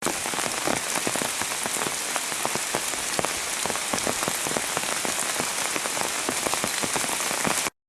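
Heavy pouring rain, with many close, distinct drops striking among a steady hiss; it cuts off suddenly near the end.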